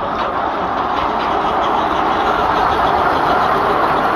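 Count Louis, a 1924 Bassett-Lowke 4-4-2 Atlantic miniature steam locomotive, running along its track hauling passenger cars: a steady rushing noise that grows gradually louder as it nears.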